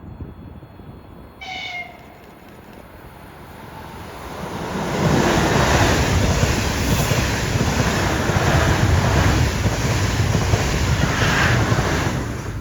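A train horn sounds once, briefly, about a second and a half in; then a train passes the platform at speed, its noise building over a few seconds and staying loud until it stops abruptly near the end.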